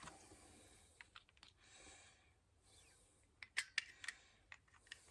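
Faint small clicks and taps of a plastic doorbell chime unit being handled, with a few sharper clicks about three and a half to four seconds in.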